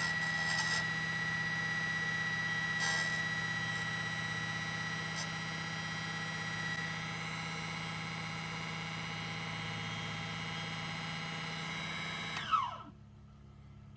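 Small high-speed motorized cutting tool running steadily with a high whine as it cuts through the glass envelope of a vacuum tube, with a few faint scrapes along the way. About twelve and a half seconds in it is switched off and its pitch falls as the motor winds down.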